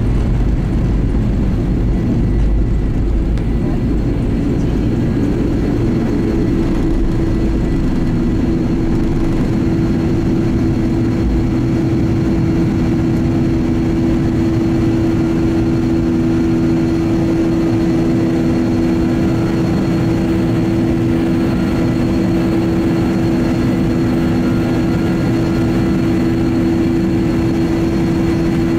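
Boeing 737-800's CFM56-7B turbofan engines at takeoff thrust, heard from inside the cabin. A heavy runway rumble from the wheels on the takeoff roll fades about six seconds in as the jet lifts off. After that a steady engine drone with a humming tone carries on through the climb.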